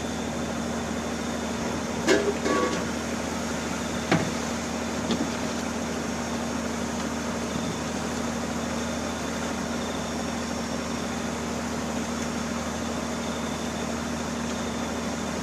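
Engine aboard a fishing boat running steadily with a constant hum. A few brief knocks come about two and four seconds in.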